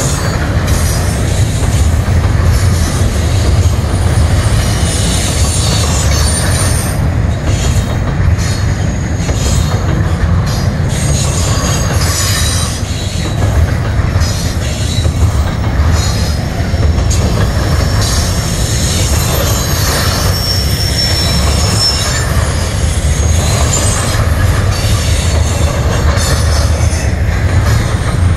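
Double-stack intermodal well cars rolling past at track speed: a steady, loud rumble of steel wheels on rail, with brief high-pitched wheel squeals several times.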